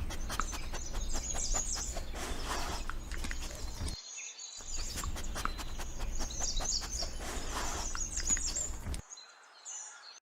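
Birds chirping, many short high calls overlapping over a steady low rumble, broken by a brief silence about four seconds in.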